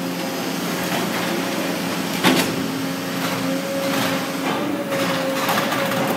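Steffen Systems hay compressor running, a steady mechanical hum with a held higher tone as compressed hay bales feed through. One sharp knock comes a little over two seconds in.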